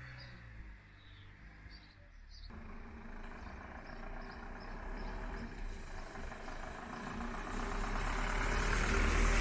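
Ford Transit recovery truck's engine running as it drives toward the listener, growing steadily louder as it approaches.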